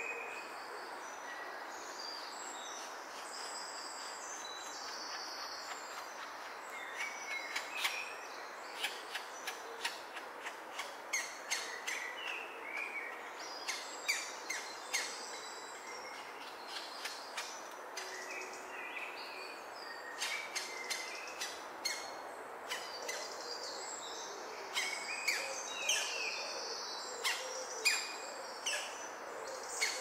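Birds calling: short high chirps and sharp clicking notes, coming thick and fast from about seven seconds in, over a steady hiss of background noise.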